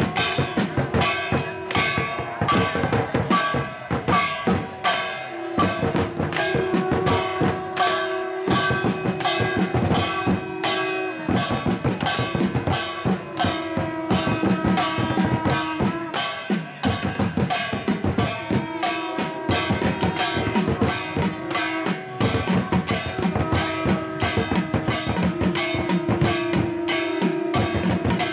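Music with a quick, steady drum beat, about four strikes a second, over long held notes that change every few seconds.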